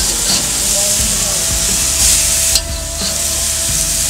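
Ground-beef hamburger patties sizzling on a hot gas-grill grate as they are flipped with a metal spatula. The sizzle swells for about half a second near the middle.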